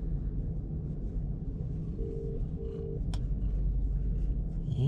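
Telephone ringing in the double-ring cadence (ring-ring, pause), repeating about every three seconds over a steady low rumble, with one sharp click about three seconds in.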